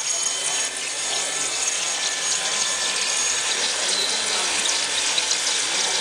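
Molybdenum-wire EDM machine cutting: a steady hiss of coolant water flushing over the wire at the cut, with the wire drum turning.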